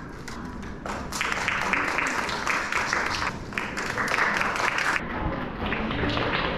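Audience applauding, starting about a second in and going on as a steady crackle of many hands clapping.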